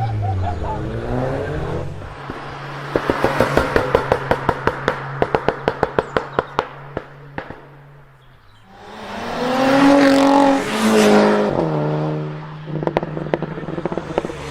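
A performance car's engine coming off a rev, then a long rapid string of sharp exhaust pops and crackles over a low steady idle. About nine seconds in the engine is revved loudly again and falls back, with a few more pops near the end.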